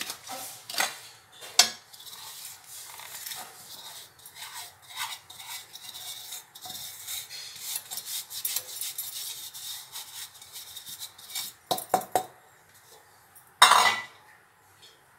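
Steel spoon scraping and tapping inside a steel tumbler as powdered sugar is emptied into a kadai of water, with metal clinks against the pan. A cluster of sharp clinks comes near the end, followed by a single louder clatter.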